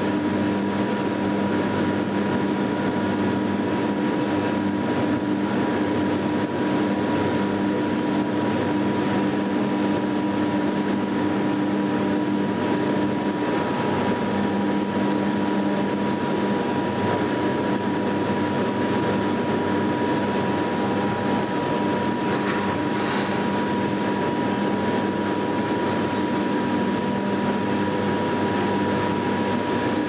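Steady industrial drone of a steel mill's ladle furnace in operation: an even rushing noise with constant humming tones running through it.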